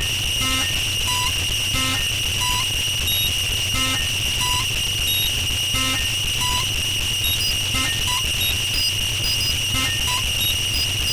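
Electronic noise music: a steady high-pitched whine over a low, rapidly pulsing buzz, with short electronic blips at a few different pitches dropping in every second or two.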